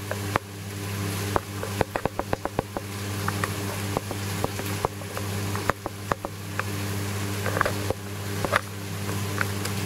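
Reef aquarium's pumps and circulating water giving a steady low hum with a running-water hiss, broken by many irregular sharp clicks and pops, some in quick runs.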